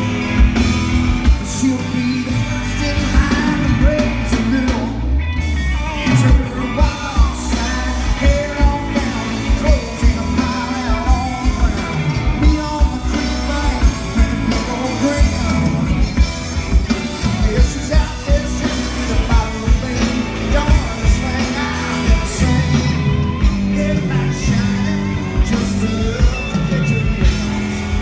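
Live rock band playing: a male lead singer over electric guitars, bass guitar and drums, with a steady beat.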